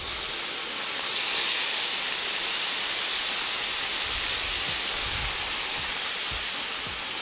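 Hot water poured from an enamel kettle into a cast-iron kazan of frying pork ribs and vegetables, hissing and sizzling steadily as it hits the hot fat and turns to steam. The hiss grows a little louder about a second in.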